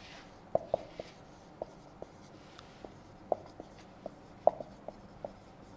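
Marker pen writing on a whiteboard: a run of short, irregular strokes and squeaks as letters are written, the loudest about four and a half seconds in.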